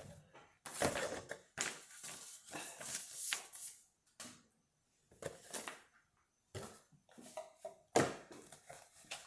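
Cardboard jigsaw-puzzle box being handled and checked, with rustling, scraping and light knocks coming in irregular bursts separated by short pauses.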